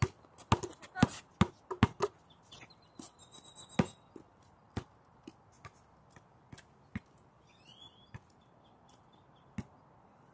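Sharp thuds of a basketball bouncing and sneakers stepping on an outdoor court near the microphone. The hits come quickly at first, then thin out to single hits a second or more apart after about four seconds.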